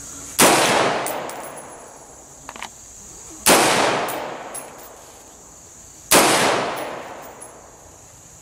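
DPMS Oracle AR-15 rifle firing three single aimed shots about three seconds apart, each a sharp crack that dies away in a long echo over about a second and a half.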